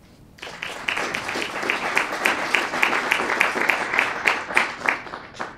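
Audience applauding, starting about half a second in and dying away to a few last claps near the end.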